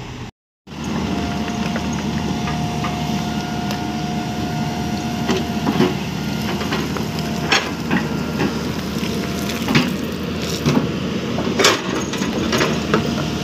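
Hyundai 215LC crawler excavator running under digging load with a steady whine, its steel bucket scraping and knocking through rocky soil: sharp cracks and clatters of stone, several in the second half. The sound cuts out for a moment just after the start.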